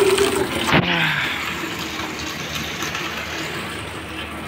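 Water gushing from a tap into a plastic bucket, a steady splashing rush as the bucket fills, with a short knock under a second in.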